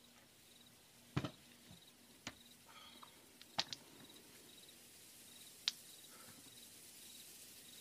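About six faint, sharp clicks or snaps at irregular intervals over a quiet background, two of them coming close together.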